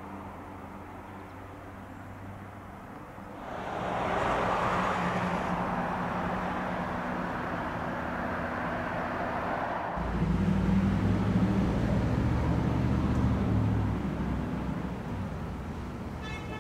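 Road traffic: a rush of passing vehicle noise swells about three and a half seconds in, and a deeper engine hum from a passing vehicle follows about ten seconds in and eases near the end.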